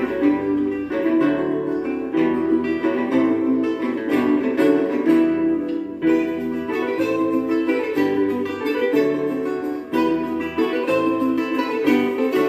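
Instrumental interlude of a song's accompaniment: steadily picked acoustic guitar over a bass line, with no singing.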